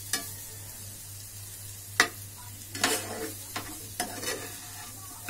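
Metal slotted spatula scraping and tapping against a frying pan as diced potatoes are stirred, over a faint sizzle of frying. There are several sharp knocks; the loudest comes about two seconds in.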